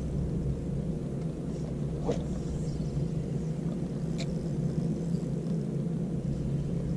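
Steady low rumble with a hum under it, and two faint short chirps about two and four seconds in.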